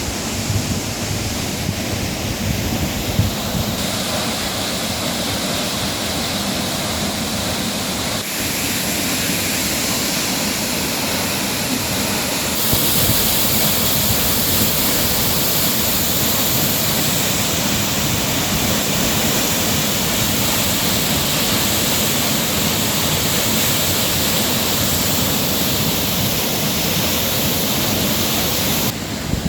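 Waterfall close up: a steady roar of falling water. Its tone changes abruptly about 4, 8 and 13 seconds in.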